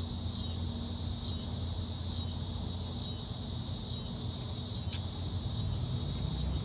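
Crickets chirping steadily, a soft high pulse about once a second, over a low steady rumble, with a single sharp click about five seconds in.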